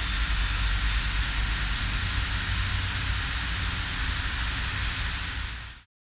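16mm film projector running: a steady mechanical whir with a low hum under an even hiss. It fades out quickly near the end.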